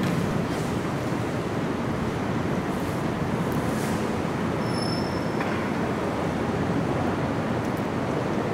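Steady low background rumble with a hiss, even throughout, like distant traffic.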